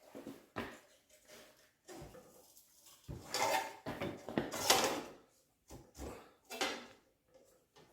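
Hand-lever bench shear cutting aluminum sheet: a series of metallic clunks and clatters from the lever, blade and loose sheet, loudest in a stretch of about two seconds midway through.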